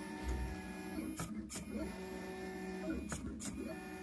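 Stepper motors of a 3D-printed CoreXY pen plotter whining as the pen carriage traces a spiral. The tones hold steady, then glide to new pitches about every couple of seconds as the motors change speed and direction going round the curve.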